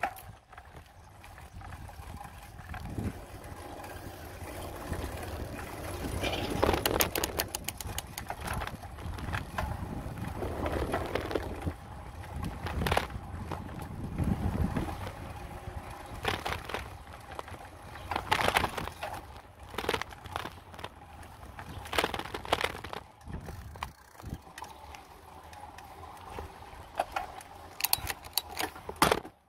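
Bicycle riding over rough asphalt, heard from a handlebar-mounted phone: a low rumble of road and wind with irregular rattles and knocks from the bike, which the rider puts down to the gears.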